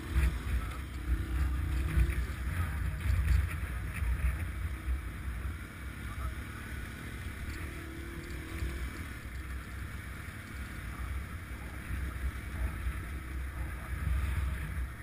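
Dual-sport motorcycle engine running while riding a dirt trail, heard under heavy wind buffeting on the microphone. The engine note rises briefly right at the start and again about eight seconds in.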